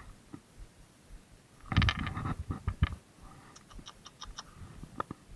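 Handling noise from a spinning rod and reel held close to the microphone: a cluster of knocks and clicks about two seconds in, then a quick run of light ticks, about four a second, and a single click near the end.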